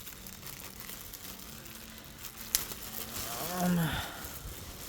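Packaging rustling and crinkling as a shirt is unwrapped by hand, with one sharp click about two and a half seconds in. Near the end a short hummed "mm" with a rising-then-falling pitch.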